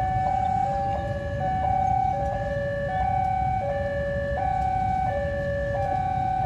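Railway level-crossing warning alarm sounding: an electronic two-tone signal alternating steadily between a higher and a lower note, each held for under a second. It warns that a train or locomotive is coming. A low steady rumble runs underneath.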